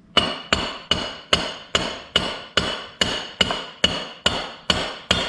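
Steady, even hammer blows on metal, about two and a half a second, each with a short metallic ring, tightening a nut on a 1982 Honda CB900C engine's clutch mechanism by hammering.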